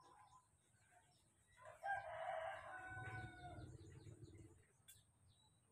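A rooster crowing once: a call of nearly three seconds that starts about a second and a half in, dropping to a lower pitch in its second half.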